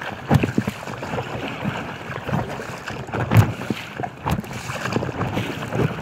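Choppy water splashing and slapping irregularly against an inflatable kayak, with wind buffeting the microphone; one slap about three and a half seconds in is the loudest.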